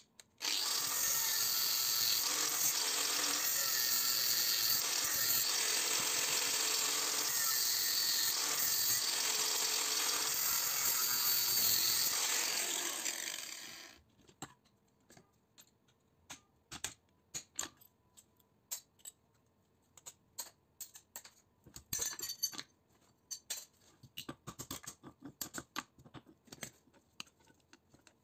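Angle grinder with a cutting disc running and cutting through the steel frame of a small transformer for about thirteen seconds, then winding down. Afterwards scattered light clicks and knocks of metal parts being handled on a steel plate.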